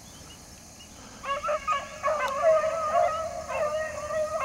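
A pack of rabbit hounds baying on a rabbit's scent line, several long drawn-out voices overlapping. The baying starts about a second in.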